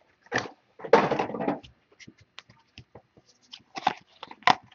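Football trading cards being handled: rustling and sliding against each other, with a louder rustle about a second in, scattered small clicks, and two short rustles near the end.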